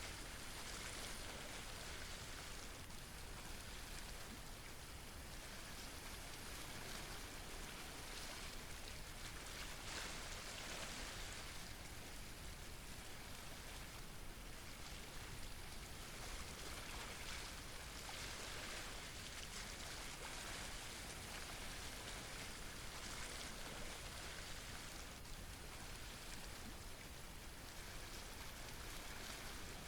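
Sea water washing against a rocky shoreline: a steady hiss of water that swells and eases every few seconds.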